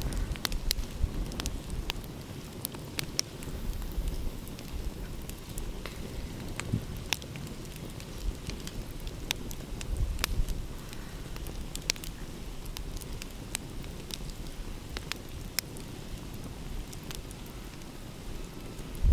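Wood fire crackling, with irregular sharp pops and snaps, over a low rumble that swells and eases every few seconds.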